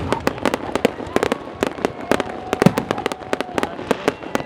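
Fireworks going off in rapid succession: many sharp bangs and cracks a second, overlapping into a continuous barrage.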